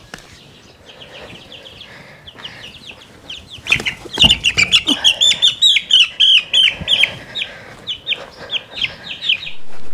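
Young chickens giving rapid, repeated high-pitched distress peeps as they are chased and caught. The calls turn loud and dense about four seconds in, along with a knock.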